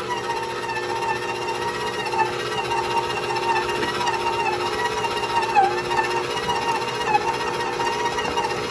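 Electric stand mixer running at a raised speed, its motor giving a steady whine as the dough hook kneads a dry dumpling dough that has not yet caught on the hook.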